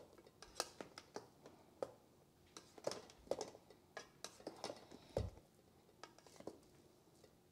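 Plastic rice paddle stirring cooked fried rice in a rice cooker's coated inner pot: soft, irregular scrapes and taps of the paddle against the pot and the rice, several a second.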